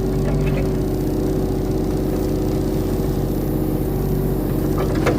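Skid steer engine running steadily at an even speed while the machine pushes a tree over.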